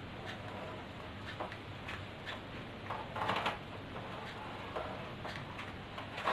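Hair straightener being clamped and drawn through hair: scattered soft clicks and rustling, with a louder rustle about three seconds in, over a low steady hum.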